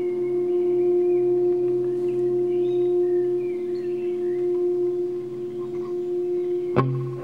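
Live music: a single held drone note, steady in pitch, over a low hum. Near the end a sharp attack starts a new, fuller chord.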